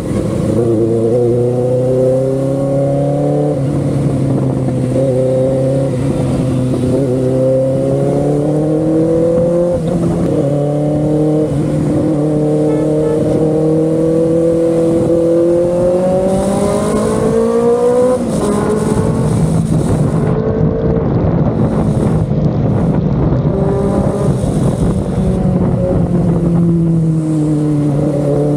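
Benelli 600i's inline-four engine running under way, its exhaust note holding and slowly climbing in pitch, with a few sudden drops and a slow fall near the end.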